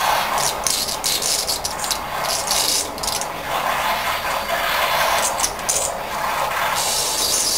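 Air-powered water cleaner running on compressed air alone: a steady hiss with irregular bursts of rougher, rattling noise.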